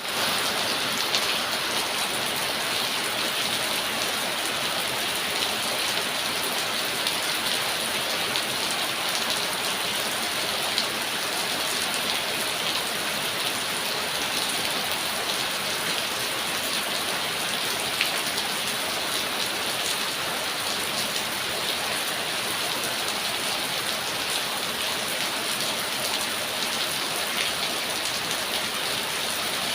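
Steady, heavy-sounding rain falling, an even hiss dotted with small drop ticks and a few louder ones.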